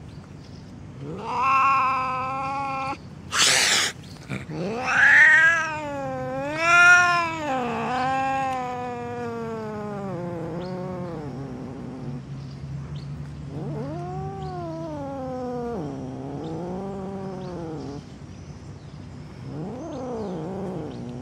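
Two cats in a standoff, caterwauling: long wavering yowls that rise and fall in pitch, with a short sharp hiss about three and a half seconds in and a low steady growl under the calls in the middle.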